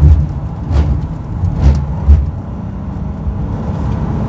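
Nissan Maxima's V6 engine and road noise heard from inside the cabin while driving at speed. A few short, louder low surges come in the first two seconds, then it runs steadily.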